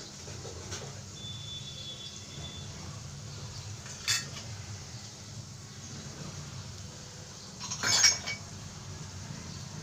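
Metal kitchenware clinking: a short clink about four seconds in and a louder clatter near eight seconds, over a steady low hum.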